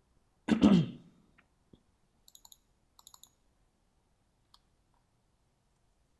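A short vocal sound from the narrator, cough-like, about half a second in. Then light computer mouse clicks: singles and quick runs of three or four clicks over the next few seconds.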